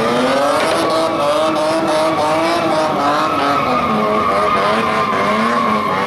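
BMW E36 coupe drifting: its engine runs at high revs, the pitch rising and falling as the throttle is worked, over a steady high tyre squeal.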